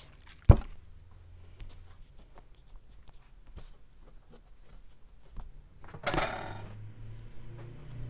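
Tabletop handling: a sharp knock about half a second in as the plastic spray bottle is set down, then soft taps and paper handling as the wet eco-print papers are smoothed and stacked, with a brief rustle about six seconds in.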